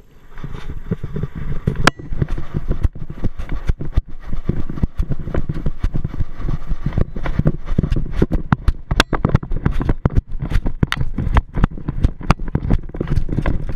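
Handling noise from a camera strapped to a walking animal's harness: irregular knocks, clicks and scraping over a low rumble as the camera jostles against the harness and the animal's body.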